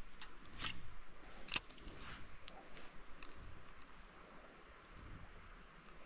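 Faint, steady high-pitched trill of insects, cricket-like, with a few soft clicks in the first few seconds.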